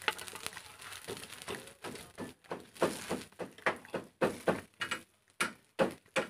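Irregular light knocks and clicks, a few a second, as small round cakes are picked out of a dimpled cake pan and handled; the knocks grow louder in the second half.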